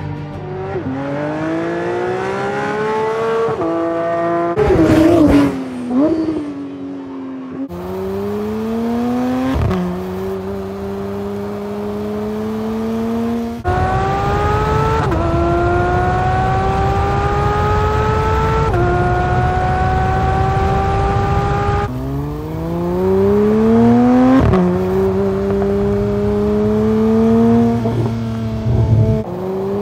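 Porsche 992 GT3's naturally aspirated 4.0-litre flat-six accelerating hard through the gears. Its pitch climbs steadily and drops sharply at each upshift. About five seconds in there is a louder moment, then the pitch falls as the car slows, before it pulls up through the gears again.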